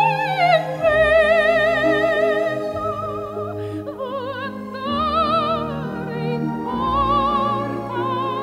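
Background music: an operatic singing voice holding long notes with wide vibrato over sustained orchestral accompaniment.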